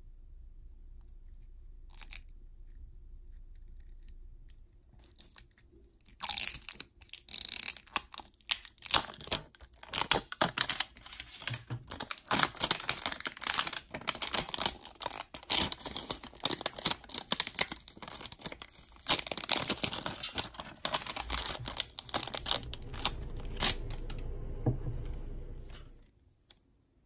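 Printed plastic shrink-wrap sleeve being torn and peeled off a plastic toy pot: dense, irregular crinkling and tearing that starts about six seconds in and stops abruptly near the end, with only faint handling before it.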